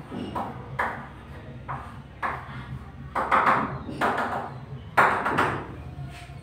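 Chalk scraping and tapping on a blackboard in a series of short strokes as a diagram is drawn; the loudest stroke comes about five seconds in.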